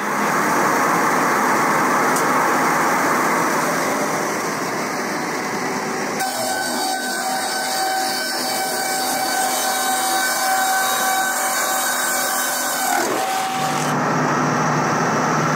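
Multi Saw ELE640 board edger / multi-rip running at slow feed speed, its gang of rip saws cutting boards being fed through: a steady, loud sawing noise. About six seconds in, a steady whine joins it, and the sound changes again near the end.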